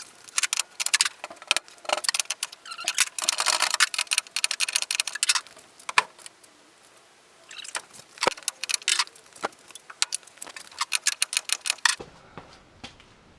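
Ratchet wrench clicking in rapid bursts with some metal rattling, as the door hinge bolts are worked to adjust the door's alignment.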